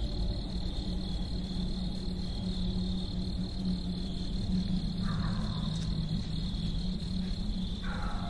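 Crickets trilling steadily at night in woodland, one continuous high-pitched chirr, over a low steady hum; two brief faint sounds come in about five and eight seconds in.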